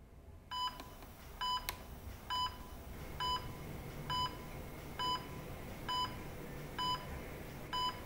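Hospital heart monitor beeping steadily, a short electronic beep about once a second in time with the heartbeat, over a low room hum. One sharp click comes between the second and third beeps.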